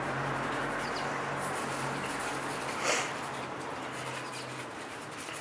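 A young American Bully puppy gives one short, high squeak about three seconds in, over a steady low hum and background noise.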